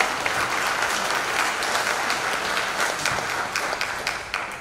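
Audience applauding, a steady dense patter of many hands that dies away near the end.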